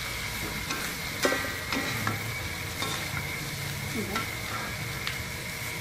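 Squid and sliced chillies sizzling in a metal wok while a metal spatula stirs them, with a steady frying hiss and scattered clinks and scrapes of the spatula against the pan.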